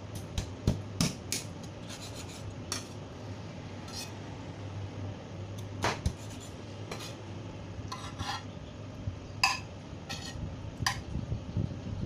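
Large kitchen knife cutting cooked chicken on a cutting board: irregular sharp knocks and scrapes of the blade on the board, loudest about a second in and again near nine and a half seconds, over a steady low hum.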